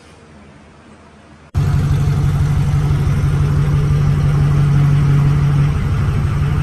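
A machine running with a loud, steady low hum that cuts in abruptly about a second and a half in, after a quiet stretch.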